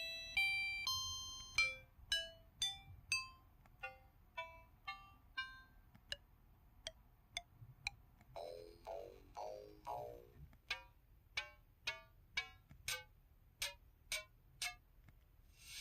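Keypad button tones of a KTF-TR2000 mobile phone: a series of short electronic beeps, about one or two a second, each at a different pitch. A few quick falling chirps come around the middle.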